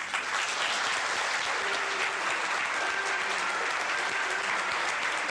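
Audience applauding, starting suddenly just as the dance music ends and then holding steady.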